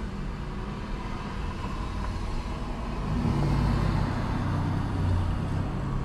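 Street traffic heard through a dashcam inside a car waiting at an intersection: a steady low engine hum and road noise, swelling a little about halfway through as a pickup truck pulls across in front.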